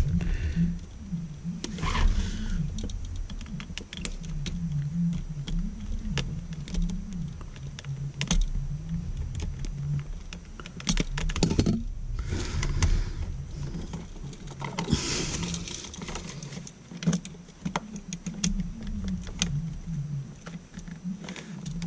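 Irregular small clicks and taps of hands working wire strippers, a stripped copper wire and a duplex outlet while the hot wire's loop is fitted to a terminal screw, over a low background rumble.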